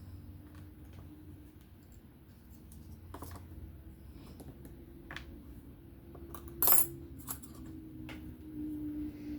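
Small metal knife parts and tools clicking and clinking against each other and a hard work surface during hand reassembly of a folding knife. There are a few scattered light clicks and one sharp clink about two-thirds of the way in, over a faint steady hum.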